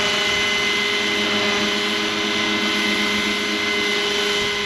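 Roban 600-size Hughes MD500 scale RC helicopter hovering at its highest head speed, about 1600 RPM: a steady high whine over rotor noise.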